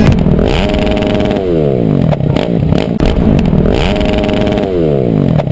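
Motorcycle engine revving twice. Each time the pitch climbs quickly, holds for about a second, then falls away, and the second rev is a near-exact repeat of the first.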